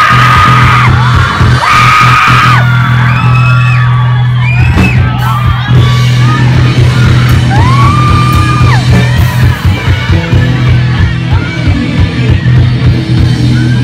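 Live rock band playing loud: electric guitars, bass holding a steady low note and drums, with high notes sliding up and held, and yelling over the top. The drum hits grow denser about five seconds in.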